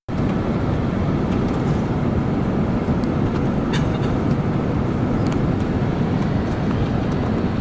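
Steady low rumble of an Airbus A330-200 in flight, heard inside the passenger cabin: engine and airflow noise on approach, with a faint click about halfway through.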